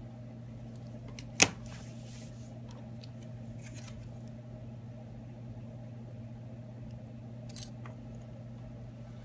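Small tools and phone parts handled on a work bench: a sharp click about a second and a half in and a softer one near the end, with a few faint ticks between, over a steady low hum.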